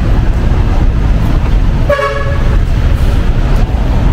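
A vehicle horn gives one short toot about two seconds in, over a steady low rumble of street traffic.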